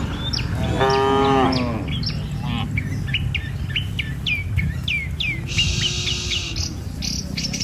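Cattle mooing: a short call about a second in and a fainter, longer moo around six seconds. Birds chirp repeatedly throughout.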